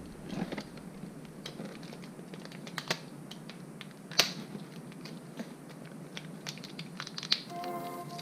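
Small clicks and plastic crackling of a small container of bearing grease being handled and opened, with a few sharper clicks. Background music starts near the end.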